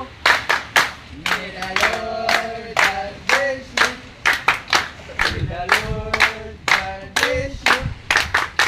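A group of people singing a birthday song together, clapping in time with steady hand claps about three a second.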